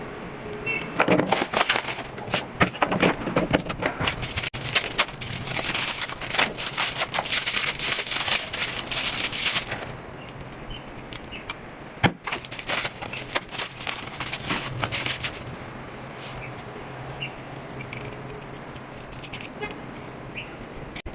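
Packaging rustling and crinkling while items are unpacked, with many clicks and light knocks of things being handled, busiest in the first half, a sharp click about twelve seconds in, then sparser ticks.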